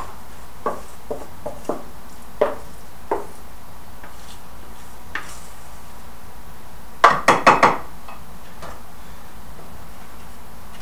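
Mixing bowl and kitchen utensils knocking and clinking: scattered light knocks in the first few seconds, then four quick, loud knocks about seven seconds in, as the bowl is handled and tapped while being emptied.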